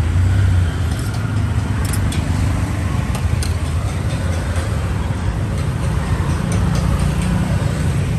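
Steady low rumble of street traffic, with a few light clicks of a metal spatula on the cart's pans and containers.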